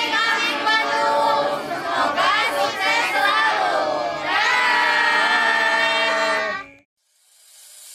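A group of children and young adults shouting and cheering together, ending in one long unison shout held for about two seconds that cuts off abruptly. A short silence follows, then a faint rising hiss.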